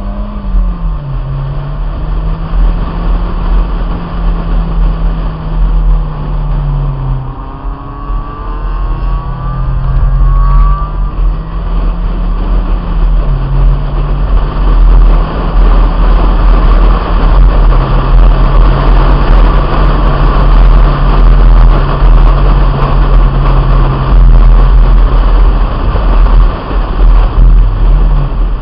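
1997 Honda Integra's four-cylinder engine at track pace, its pitch rising and falling repeatedly with throttle and gear changes. Heavy wind buffeting on the roof-mounted microphone lies under it throughout.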